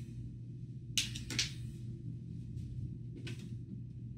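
Handling of a small adapter being fitted into a window air conditioner: a few short clicks, two close together about a second in and another after three seconds, over a steady low hum.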